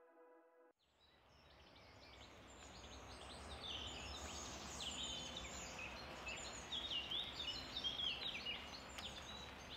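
Ambient synth music stops under a second in, and outdoor ambience fades in: many small birds singing and chirping in rapid, overlapping calls over a low steady rumble.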